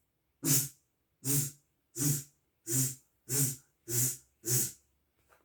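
A man's voice making seven short buzzing "zz" sounds, evenly spaced at about one and a half a second: the short sound of the letter Z, which the lesson likens to a bee's buzz.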